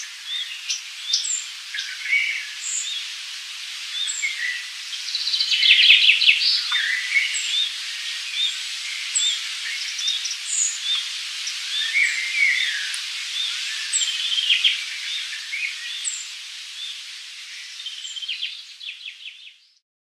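Forest ambience of several birds chirping and calling over a steady high hiss. One bird repeats a short, high, falling note about every second and a half. There is a louder burst of chattering about six seconds in, and the whole fades out at the very end.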